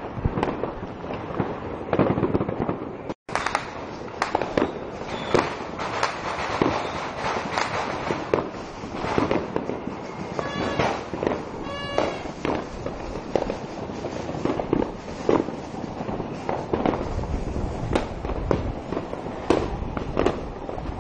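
New Year fireworks and firecrackers going off continuously, a dense run of overlapping sharp bangs and crackles. The sound drops out for an instant about three seconds in, and a short pitched tone rises above the bangs a few times between about ten and twelve seconds in.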